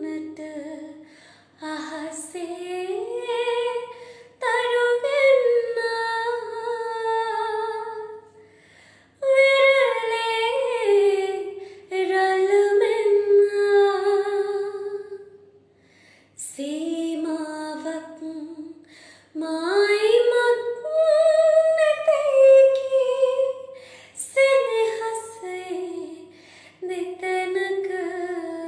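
A young woman singing a Sinhala song unaccompanied, in phrases of a few seconds with short breaks for breath between them.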